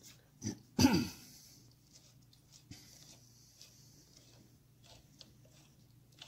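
A short breathy vocal sound, a sigh or grunt falling in pitch, about a second in. After it come faint scattered clicks of hands handling metal engine parts over a low steady hum.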